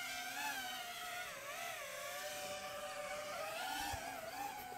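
Small FPV drone's propellers whining, the pitch wavering up and down as the throttle changes.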